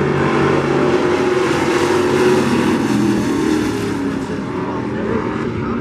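Several race-truck engines running hard together as the pack of pickups laps the track, their overlapping engine tones swelling louder about two seconds in, then dropping back a little near the end.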